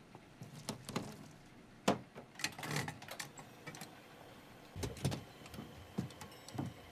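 Metal clicks and clunks as a gas pump nozzle is handled and set into a car's fuel filler, with car-door knocks near the end.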